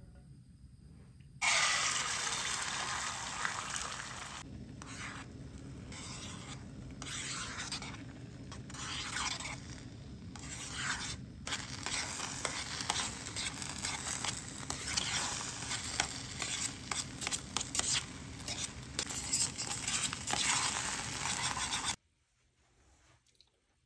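Scrambled eggs sizzling in hot oil in a small camping frying pan while chopsticks stir and scrape through them. The sizzle starts suddenly about a second and a half in, rises and dips with the stirring, and cuts off abruptly near the end.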